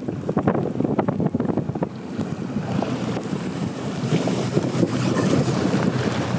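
Wind buffeting the microphone on a moving boat, with the rush of water and the boat's steady running noise underneath; the gusts are heaviest in the first couple of seconds.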